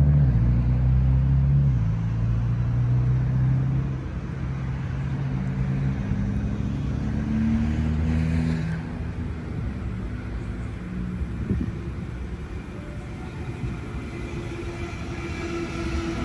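Low humming rumble, loudest in the first few seconds, as a Sydney Trains Waratah double-deck electric train approaches. Near the end it grows louder and the train's electric motor whine rises in pitch.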